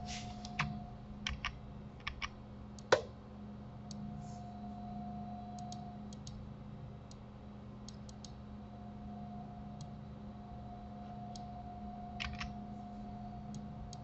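Computer keyboard and mouse clicks: scattered key presses, a cluster in the first three seconds with the loudest about three seconds in, and another pair about twelve seconds in, over a steady low hum.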